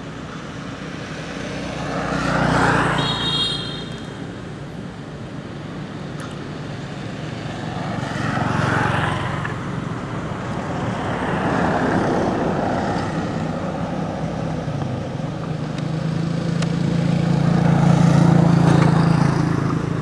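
Road traffic passing close by: several vehicles go by one after another, each swelling and fading, over a steady low engine hum that is loudest near the end.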